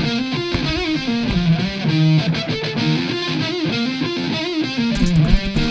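Background rock music: a distorted electric guitar passage, with drums coming in near the end.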